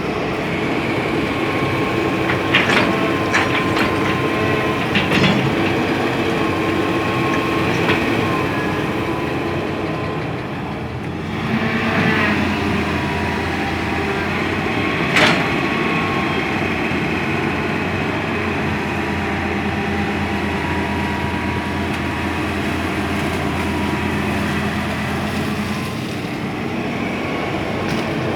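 Hitachi hydraulic excavator working: its diesel engine runs steadily with a thin whine over it, dipping briefly about ten seconds in, and a few sharp metal clanks come through, most of them in the first few seconds and one about fifteen seconds in.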